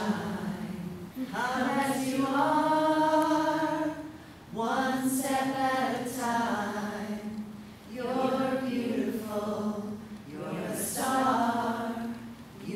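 A group of voices singing a slow song without instruments, in long held phrases with short breaths between them.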